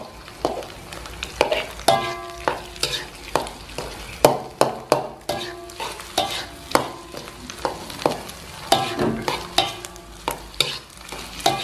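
Metal spatula scraping and knocking against a metal wok about twice a second, many strokes leaving the wok ringing briefly, over a steady sizzle of egg and chillies frying in oil.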